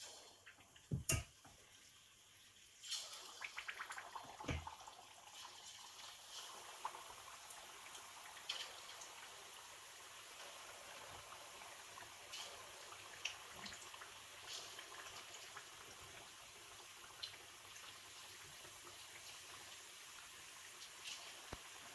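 A knock about a second in, then food frying in hot oil: a sizzle with crackles begins about three seconds in, busiest at first and then settling into a steady sizzle.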